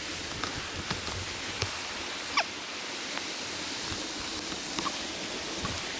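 Steady rush of a mountain stream running over rocks, with a few light clicks scattered through it.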